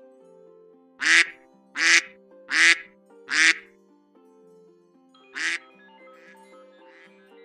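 Cartoon-style duck quack sound effects over a soft keyboard melody, played as a phone alert tone. Four loud quacks come about three-quarters of a second apart, starting about a second in, and a fifth follows a couple of seconds later.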